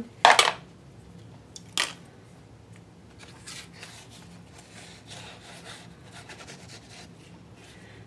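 A black StazOn ink pad's case gives a sharp clack about half a second in and another click a little over a second later. After that the ink pad is rubbed lightly over embossed paper in soft, scratchy, uneven strokes, inking the raised pattern.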